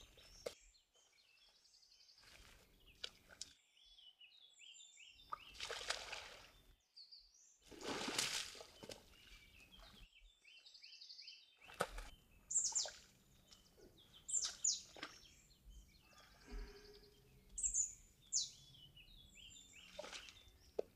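Small birds calling with short, high chirps and quick falling notes, with a few bursts of splashing and sloshing in water, loudest twice in the first half, from a red deer stag wallowing in a mud bath.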